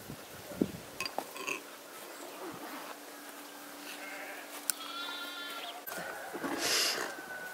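Livestock bleating.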